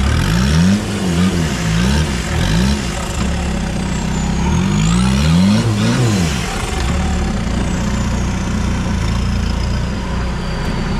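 Off-road 4x4's engine revving up and down in quick repeated blips as it works through loose dirt with the wheels spinning and throwing earth, then holding steadier revs near the end.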